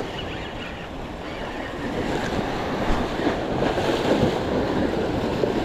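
Surf breaking and washing over shoreline rocks, swelling louder about two seconds in, with wind on the microphone.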